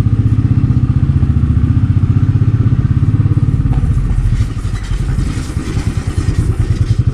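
Motorcycle engine running as it rides along a rough lane, with a fast, even, low pulsing. The engine goes quieter about four and a half seconds in as the bike slows.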